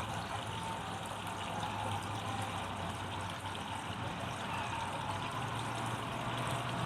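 ShopSmith bandsaw running steadily with a low motor hum and an even whirring noise, not cutting anything.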